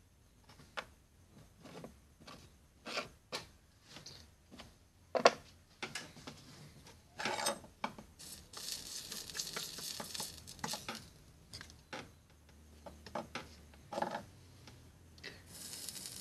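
Small metal things clicking and knocking on a wooden tabletop as a bottle cap and a spoon are handled, the loudest knock about five seconds in. A soft hiss runs for a few seconds near the middle, and another starts near the end as the soldering iron touches the solder wire.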